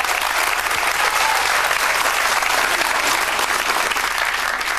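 Studio audience applauding steadily, beginning to die down near the end.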